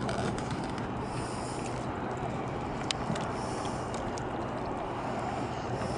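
River water lapping against a stone riprap bank over a steady low hum from a boat engine on the river, with one sharp click about three seconds in.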